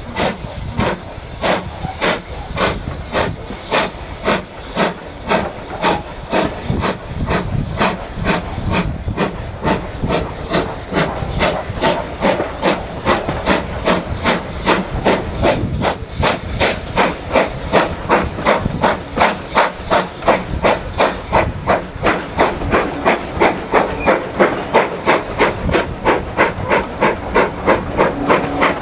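BR Standard Class 2 steam locomotive working under steam, its exhaust chuffing in a steady rhythm of about two to three beats a second, heard from a carriage window behind it with the run of the train underneath. The beats grow stronger in the second half.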